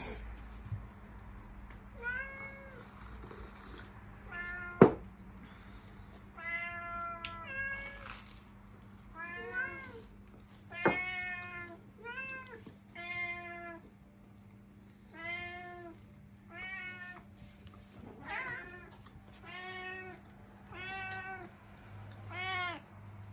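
Domestic cat meowing over and over, about fifteen short rising-and-falling meows every second or two, the insistent meowing of a cat begging for food. Two sharp clicks cut in, the louder one about five seconds in.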